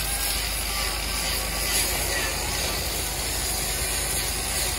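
A motor-driven machine running steadily with a fast, even mechanical rattle.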